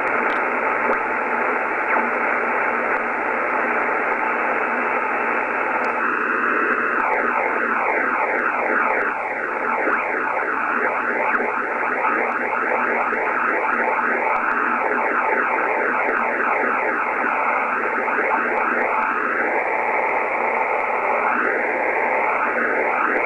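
Yaesu FTDX-5000 receiver audio in synced diversity mode while being tuned: steady hiss, and from about six seconds in, repeated swishing tones sweeping down and up in pitch through the noise. The owner thinks this strange noise comes from imperfect sync between the two receivers' DSPs.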